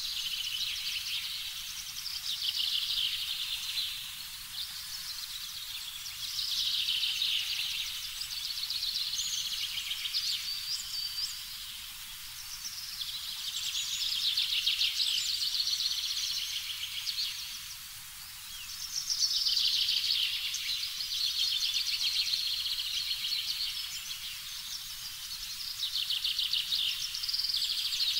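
A chorus of high, rapidly pulsed animal trilling, like a nature ambience, swelling and fading in waves every few seconds.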